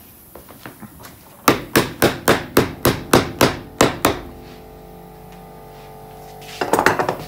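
A hammer driving upholstery tacks into a wooden chair seat rail to lock off jute spring-tying twine. About ten sharp strikes come at roughly four a second from about a second and a half in, then a faint ringing, then a quick flurry of lighter strikes near the end.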